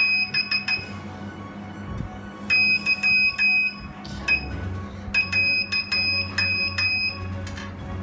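Small battery-powered buzzer keyed by touching two wire clips together, sending Morse code: a high, steady beep switched on and off in short dits and longer dahs.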